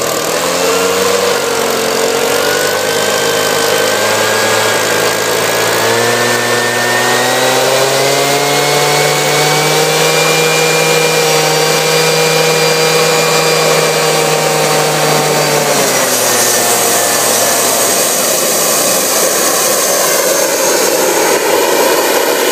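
Homemade turbocharger jet engine running: a turbine whine climbs slowly in pitch over a loud rushing noise and a low hum. About two-thirds of the way through, the whining tones and the hum drop away, leaving a brighter, steady jet hiss.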